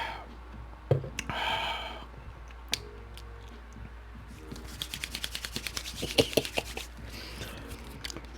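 Close-up eating sounds: a short rustling burst about a second in, scattered sharp clicks, then a quick run of clicks from chewing and utensils in the second half.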